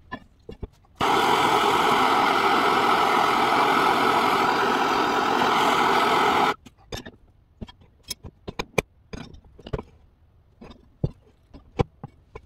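A handheld gas torch burns with a loud, steady hiss for about five seconds while heating the bent steel speed selector arm, then cuts off suddenly. Afterwards come a string of sharp metal clicks and knocks as the arm is handled and worked in the arbor press.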